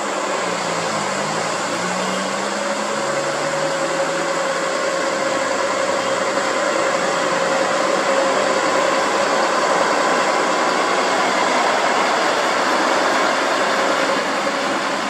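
Diesel engine of a heavy Nissan truck pulling uphill under load as it comes up the bend toward the roadside, a steady engine drone that grows gradually louder toward the middle.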